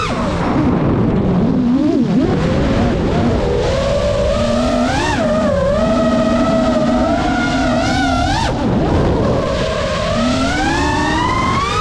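Geprc Mark 5 5-inch FPV quadcopter's brushless motors whining as the throttle changes, over the rush of prop wash and wind. The pitch climbs about four seconds in, holds high with quick wobbles, drops sharply about eight and a half seconds in, then climbs steadily again near the end.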